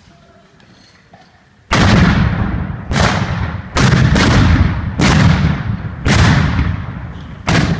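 Black-powder guns fired in a ragged volley: seven loud shots at uneven spacing, roughly one a second, each trailing off in a long echo.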